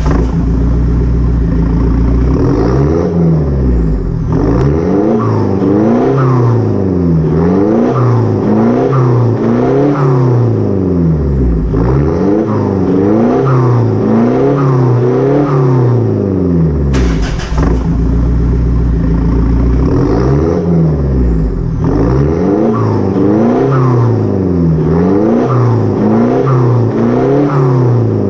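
A 2013 Mitsubishi Montero Sport's turbocharged engine, running through an aftermarket turboback exhaust, is revved over and over in park to about 3,000 rpm. The pitch rises and falls about once every second or two, settles to a steady idle for a few seconds past the middle, then the blips start again.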